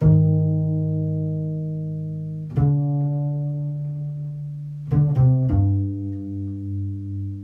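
Plucked low notes on a bass, each left to ring out. One note sounds, a second follows about two and a half seconds in, then three quick notes about five seconds in; the last rings on with a slow pulsing wobble.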